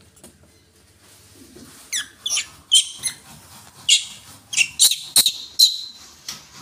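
Young macaque calling in a string of short, high-pitched squeaks, about eight of them between two and six seconds in, some bending down in pitch.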